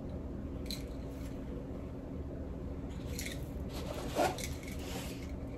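Soft rustling of silk twilly scarves being handled, over a low steady room hum, with one brief soft bump about four seconds in.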